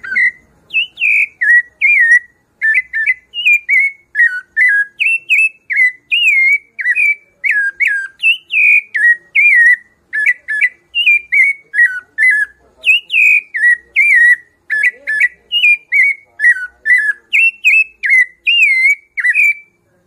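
Rufous-bellied thrush (sabiá-laranjeira) singing the 'piedade Senhor' song type: a steady run of short, clear whistled notes, about two to three a second, most of them slurring down in pitch.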